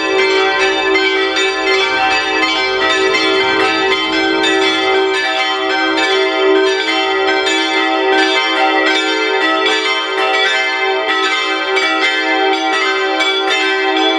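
Full peal of five bronze church bells cast by Rincker, tuned e'' g'' a'' c''' d''', swinging together so their strikes overlap continuously in a steady ringing.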